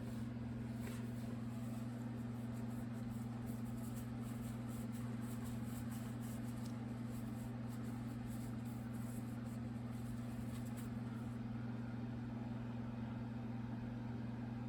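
Steady low electrical hum, one unchanging low tone with its overtone, with a few faint clicks.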